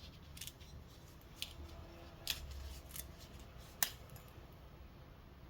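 A handful of short, sharp clicks, spaced irregularly about a second apart, the loudest near the end, over a faint low hum.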